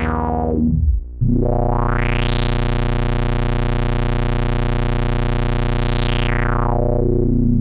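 Ruby software subtractive synthesizer playing a low sawtooth note through a resonant low-pass filter. The filter closes down at the start; a new note enters about a second in, and the filter sweeps slowly open, holds bright, then sweeps closed again near the end.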